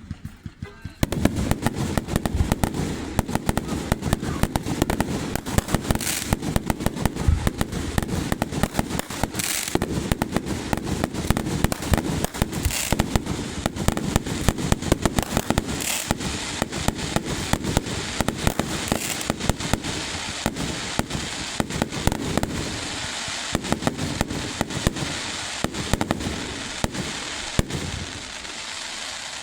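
Fireworks display going off: a rapid, unbroken run of bangs and crackles that starts about a second in.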